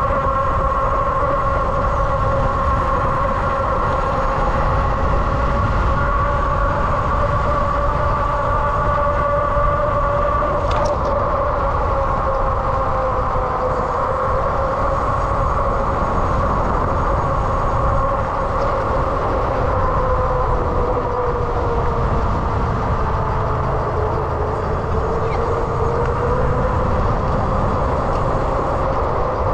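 Ariel Rider X-Class electric bike under way: a steady electric motor whine that drifts slowly in pitch, dipping about three quarters of the way through, over a low rumble of wind on the microphone.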